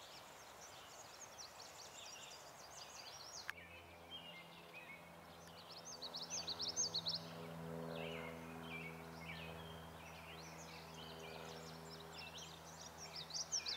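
Birds calling outdoors in quick chirps and short rapid runs. A click a few seconds in is followed by a steady low mechanical hum underneath.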